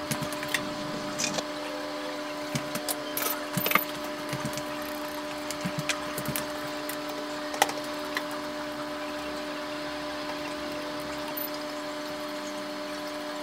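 Silicone spatula tapping and scraping against a stainless-steel frying pan as vegetables and squid pieces are stirred and added to the broth: scattered clicks and knocks through the first eight seconds, then they stop. A steady hum lies underneath throughout.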